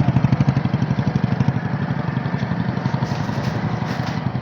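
A small engine idling with an even low pulse, about eight beats a second, over a steady hiss.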